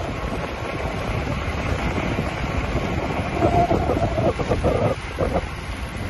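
Wind buffeting the microphone of a camera riding along on a road bike: a steady low rumble. A brief uneven higher sound rises above it a little past halfway.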